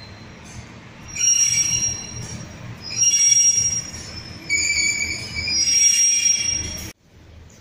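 Class 142 Pacer diesel railbus squealing as it runs slowly alongside the platform: several high-pitched squeals in overlapping tones come and go from about a second in, over a low rumble, and cut off abruptly near the end.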